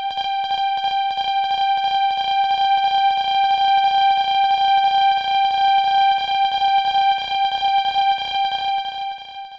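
Japanese level-crossing warning bell ringing its rapid, evenly repeated 'kan-kan' at one steady pitch, fading out just before the end.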